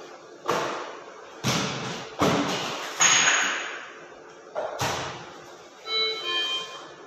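A series of five thuds and bangs as equipment is handled and set down, each one trailing off, followed by a brief squeak near the end.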